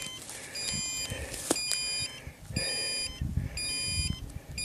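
Rocket altimeter beeping out the flight's recorded altitude: a string of high, electronic beeps about one a second, over footsteps crunching on gravel.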